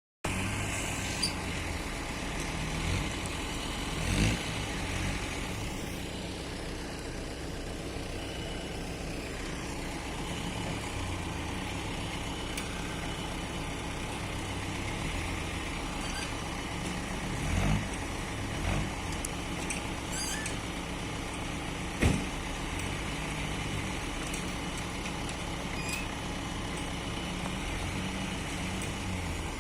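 Excavator's diesel engine running and working as it loads soil into a truck, its note shifting up and down with the load. A few sharp knocks come about four seconds in, twice around seventeen to nineteen seconds, and once at twenty-two seconds.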